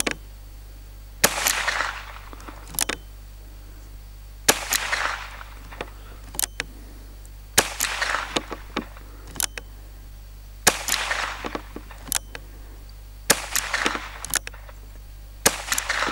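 Six .22 LR rifle shots from an Alfa revolver carbine, fired slowly at about three-second intervals. Each is a sharp crack trailed by a short echo, with smaller clicks between the shots.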